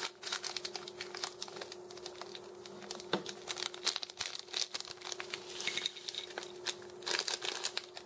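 Scissors cutting open a small cellophane candy bag, then the plastic crinkling in irregular sharp crackles as the opened bag is handled.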